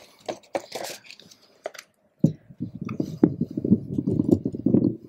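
Handling noise: a few light clicks and taps, then from about two seconds in a dense, low rumbling of rubbing and knocks.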